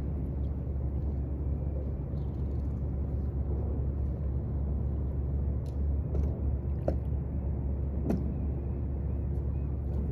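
Steady low outdoor rumble, with a few short sharp clicks scattered through the second half.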